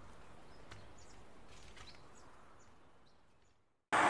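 Faint outdoor film ambience with a few short, distant bird chirps, then a gap of dead silence. Just before the end, a louder, even hiss of ambience cuts in suddenly.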